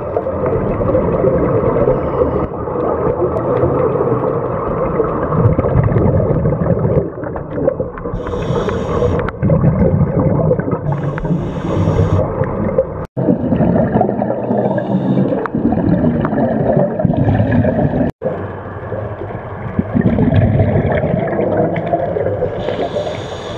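Scuba diver's breathing heard through an underwater camera housing: a continuous low bubbling of exhaled air, with a short hiss from the regulator on inhalation three times.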